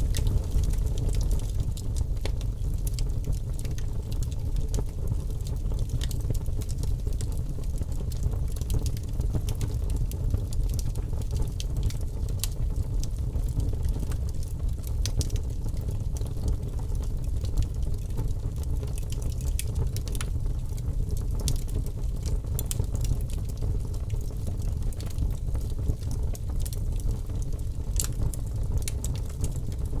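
Wood fire burning: a steady low rumble of flame with frequent small crackles and pops scattered throughout.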